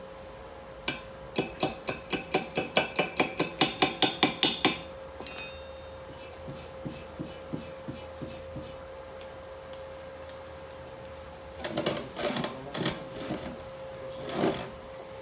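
Chipping hammer striking a welded steel plate, about eighteen quick sharp blows at roughly five a second, then lighter taps, and a few short rough bursts near the end: slag being knocked off an arc weld bead.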